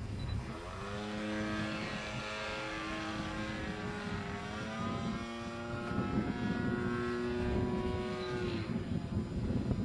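Zero fighter plane's propeller engine running as it flies overhead, its pitch climbing about half a second in, holding steady, then sliding down near the end.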